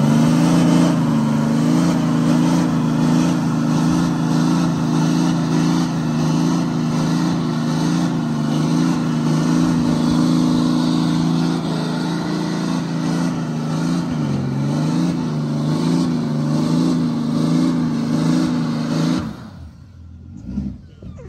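Ram heavy-duty pickup's engine held at high, steady revs in a burnout, its rear tyres spinning and smoking on the pavement. The pitch wavers slightly and the sound cuts off suddenly near the end.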